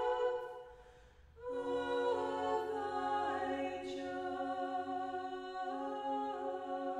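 Orthodox church choir singing a cappella in sustained chords. The singing dies away for about a second near the start, then the choir comes back in over a held low note.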